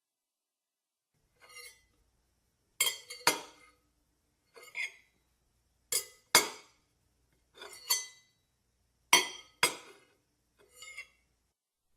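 Glassware clinking together, about ten separate clinks, several in quick pairs, each with a short ring.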